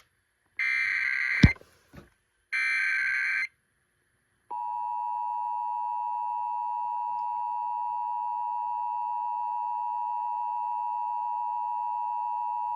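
Emergency Alert System header for a Child Abduction Emergency (Amber Alert): two one-second bursts of screeching digital SAME data tones, with a sharp click at the end of the first. Then the steady two-tone EAS attention signal sounds for about eight seconds and cuts off.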